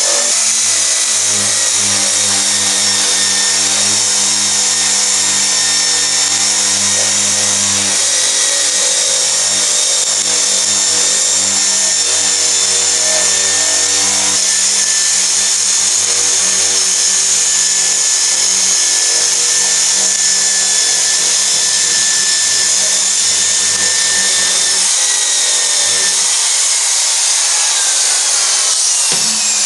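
Pistol drill spinning a blue abrasive wheel against a steel handrail bar: a steady motor whine with a scratchy grinding hiss as the wheel cleans the metal bright. Right at the end the drill is let off and winds down.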